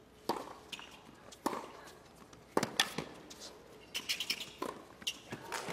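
Tennis rally on a hard court: the ball is struck back and forth by rackets, sharp knocks about once a second, with ball bounces between the strokes and a quicker cluster of smaller sounds about four seconds in.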